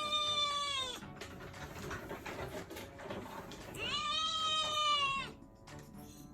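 A Munchkin kitten's unusual meow: long drawn-out calls at a steady pitch that dips at the end, one ending about a second in and another from about four seconds to just past five, with a softer rough noise between them.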